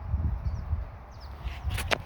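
Wind rumbling on the microphone, with a brief sharp snap near the end.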